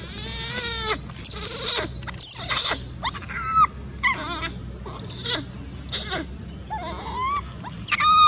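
Baby long-tailed macaque screaming in distress: a quick series of shrill cries, loudest over the first few seconds. These give way to shorter, softer squeals that rise and fall in pitch.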